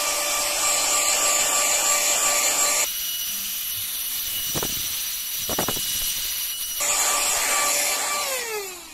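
Mini vacuum cleaner running with a steady high whine and rushing hiss as it sucks crumbs off a carpet. The sound turns duller for a few seconds in the middle. Near the end the motor is switched off and its whine falls away as it winds down.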